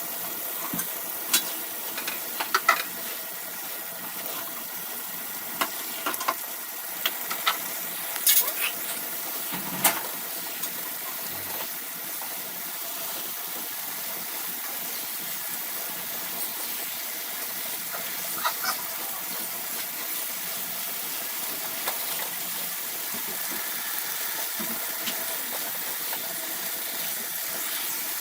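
Egg and tomato fry sizzling steadily in a pan while it is stirred, with a utensil clinking against the pan now and then, mostly in the first ten seconds.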